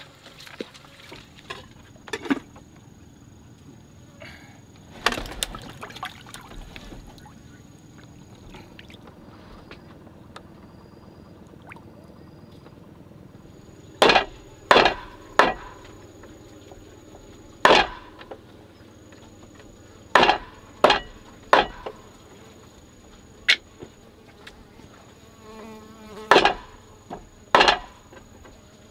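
A steady high-pitched insect drone that drops out for a while and comes back, with a run of about ten sharp knocks in the second half, spaced irregularly about a second or two apart.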